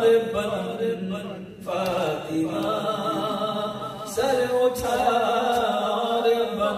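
A man's solo voice singing a manqabat, a devotional poem in praise of Fatima, in long held, wavering phrases, with short pauses for breath about a second and a half in and again about four seconds in.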